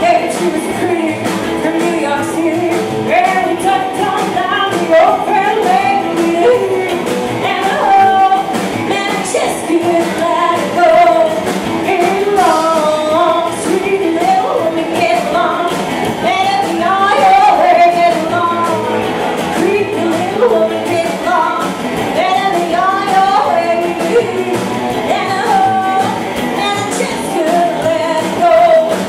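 Live rockabilly band: a woman sings lead over upright bass, drum kit and hollow-body electric guitar in a steady up-tempo rock and roll groove.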